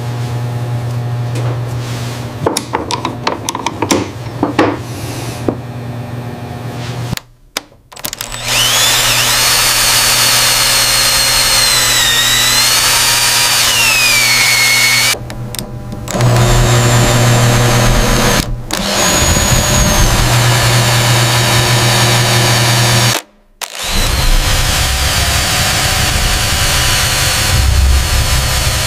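Power drill running and boring into material, a dense grinding noise with a high whine that glides up and down. It comes in several stretches separated by short breaks. The first few seconds hold scattered clicks and taps over a steady hum.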